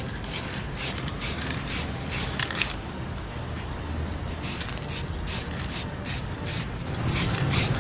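Aerosol can of acrylic spray paint hissing in short bursts, about three a second, with a pause of about a second and a half near the middle: a thin coat of paint being sprayed onto foam rubber.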